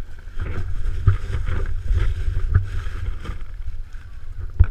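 Wind rumbling on an action camera's microphone aboard a plastic kayak, a steady low rumble with irregular knocks and splashes from the kayak and paddling.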